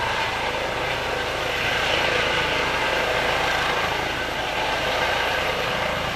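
Eurocopter EC135 air-ambulance helicopter running steadily on the ground, with the turbine whine and the beat of the turning main rotor.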